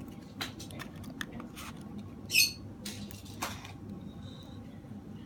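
Scattered small clicks and taps of handling a phone's small parts during repair, with one short high-pitched squeak about two and a half seconds in, the loudest sound.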